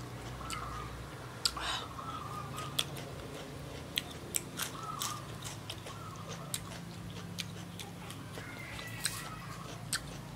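Close-up chewing of crispy fried mole crickets: irregular sharp crunches scattered throughout.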